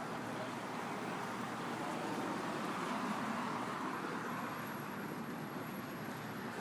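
City street traffic noise: a steady wash of passing cars, swelling slightly about two to three seconds in.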